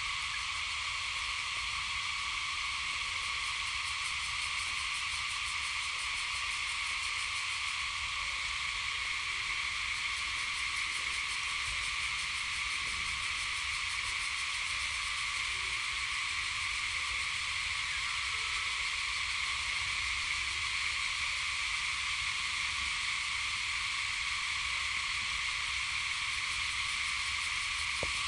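Steady insect chorus: a continuous high buzz that holds the same level, with no break or change.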